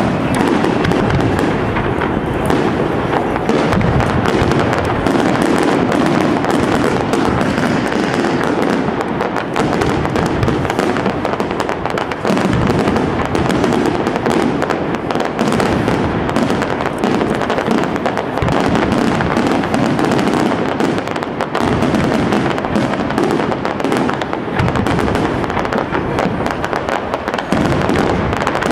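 Castillo aerial fireworks display by Pirotecnia Europla: shells bursting and crackling in a dense, unbroken barrage, the reports overlapping one another.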